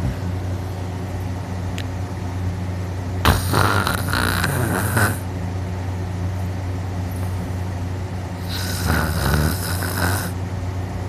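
A person snoring loudly through a mouth held wide open with the nose pinched shut, the vibration felt as the soft palate shaking hard. There are two long snores of about two seconds each, some five seconds apart, over a steady low hum.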